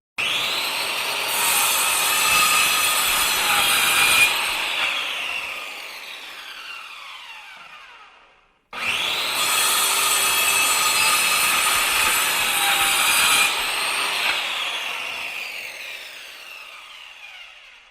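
Angle grinder switched on twice. Each time it starts suddenly, runs at full speed for about four seconds with a high whine, then is switched off and whines down in falling pitch as the disc coasts to a stop, over about four seconds.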